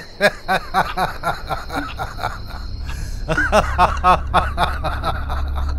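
A person's rhythmic laughter, short pulses at about four a second, in two runs with a brief break about two seconds in. A deep low hum comes up under the second run.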